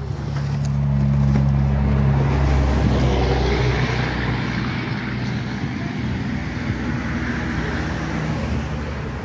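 A vehicle engine running steadily. It grows louder over the first second or so, then holds.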